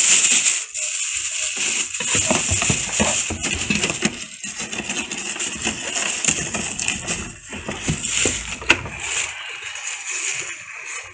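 Clear plastic wrapping rustling and crinkling in quick, irregular bursts as it is gathered by hand and the wrapped printer is lifted out of its cardboard box.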